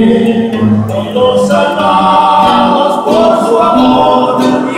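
Men singing together in long, held notes, with two acoustic guitars strummed along.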